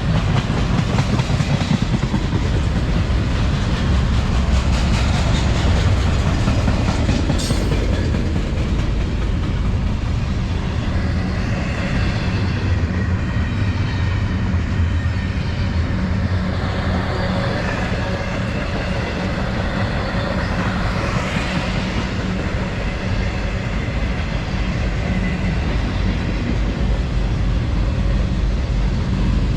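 Freight train rolling past: a steady rumble of railcars with the clickety-clack of wheels over the rail joints. A faint high whine comes and goes in the middle.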